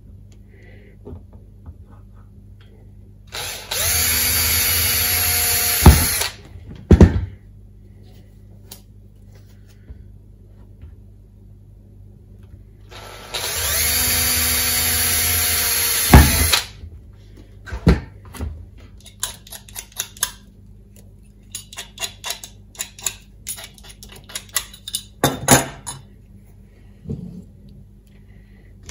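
Cordless drill run twice, each time for about three seconds, boring through a white plastic conduit tube, with a sharp knock as each run ends. Scattered light clicks and taps of the tube and tools being handled follow.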